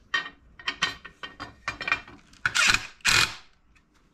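Metal parts of an aluminium floor jack clicking and rattling as its side frame plate is worked off the jack body, with two longer, louder clatters about two and a half and three seconds in.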